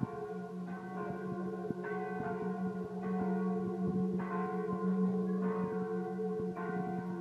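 Bells ringing: a fresh strike about every second, each ringing on into a steady, lingering hum.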